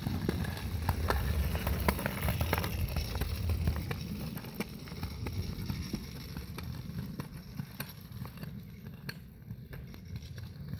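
Small plastic wheels of a child's three-wheeled kick scooter rolling along a concrete sidewalk: a rough rumble with many small clicks, louder for the first few seconds and then fading as it moves away.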